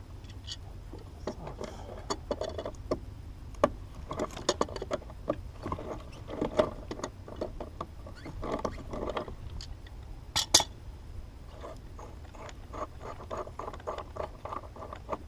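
Irregular clicks, knocks and short rattles of hands handling small hard parts, over a steady low hum.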